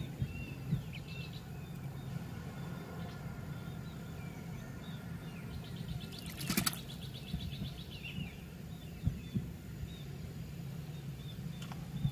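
Small birds chirping now and then, short high calls over a low steady hum, with one brief rapid clicking rattle about halfway through.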